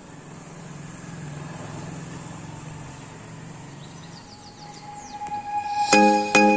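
A low, steady engine-like hum with a few quick bird chirps over it about four seconds in. Near the end, loud music with repeated bell-like notes starts suddenly.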